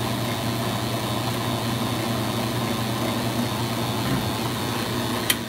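AMMCO brake lathe running with its disc feed gearbox engaged: a steady motor and drive hum with a light rattle, which comes from the feed gearbox's PTO coupler not lining up with the centre line of the spinning axis. Near the end there is a sharp click and the machine begins to run down.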